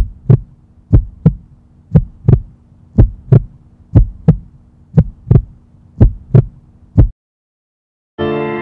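Heartbeat sound effect: a slow double thump about once a second over a low steady hum, about eight beats, stopping suddenly a little after seven seconds in. Piano music begins just before the end.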